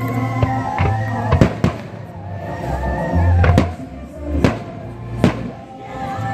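Aerial fireworks shells bursting overhead: a run of about five sharp bangs at irregular intervals, over music playing throughout.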